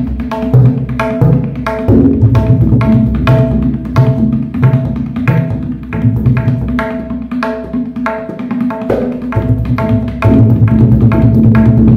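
Tabla played solo in a fast trital (teentaal) rela: a rapid, even stream of strokes on the treble dayan, ringing at one fixed pitch, over deep bass strokes from the bayan. For a few seconds in the middle the playing turns lighter as the bass falls back, then the full bass returns near the end.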